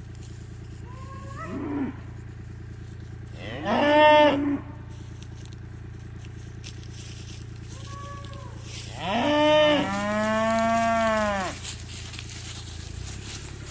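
Cattle mooing: a few separate calls, each rising and falling in pitch, the last and longest held for about two and a half seconds.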